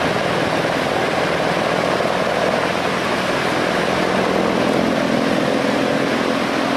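Sikorsky CH-53E Super Stallion helicopter running, a steady loud rush of turbine and rotor noise with a low hum underneath.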